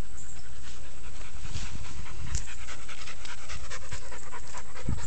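A dog panting rapidly, several short breaths a second, over a steady low rumble.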